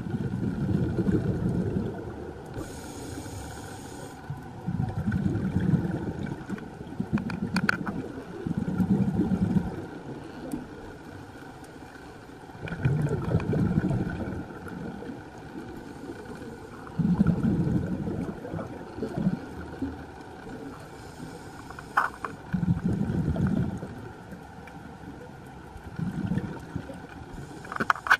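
Scuba diver breathing underwater through a regulator: exhaled bubbles rumble in repeated bursts of a second or two, with a short hiss of inhalation between some of them. A couple of sharp clicks stand out, one about eight seconds in and one about twenty-two seconds in.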